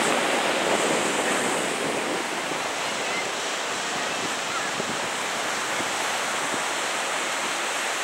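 Steady wash of ocean surf breaking on a sandy beach, with some wind.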